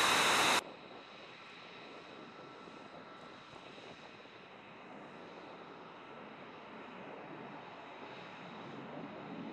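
F-22 Raptor's jet engines: very loud and close for the first half second, then heard at a distance as the fighter taxis, a steady jet whine with a thin high tone, slowly growing louder near the end.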